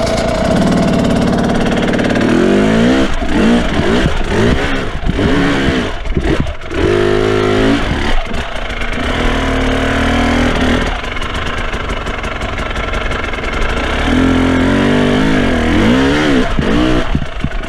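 Dirt bike engine revving up and down in quick bursts, the throttle blipped over and over as the bike is ridden slowly over rocks.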